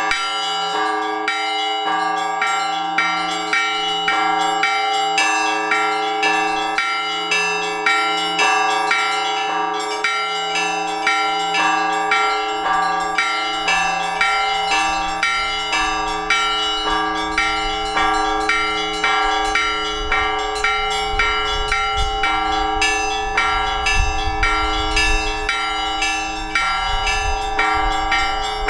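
Orthodox church bells rung together in a rapid, rhythmic peal. Small bells are struck about twice a second over the lingering hum of larger bells. A low rumble comes in over the second half.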